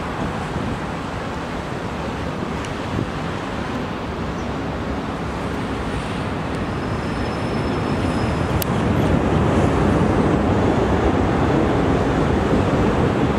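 Boeing 777's twin jet engines at taxi power, a steady rumbling hiss that grows louder as the airliner rolls toward the listener, levelling off about two-thirds of the way through.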